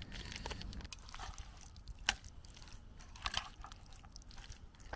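A spoon stirring packet rice into chili con carne in a metal pot: soft, wet squishing with a few sharp clicks of the spoon against the pot, the sharpest about two seconds in.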